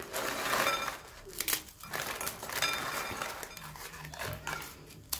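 Crisp cocoa petit beurre biscuits being snapped and crumbled into rough pieces by hand in a bowl: irregular crackling and snapping.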